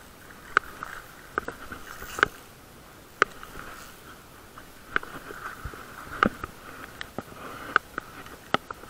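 About nine irregular sharp clicks and knocks from a Shimano Aldebaran BFS XG baitcasting reel and rod being handled, over a steady faint hiss.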